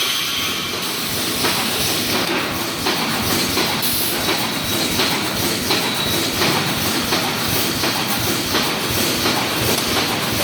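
Automatic wire mesh welding machine running, a dense mechanical clatter of repeated knocks with a hiss.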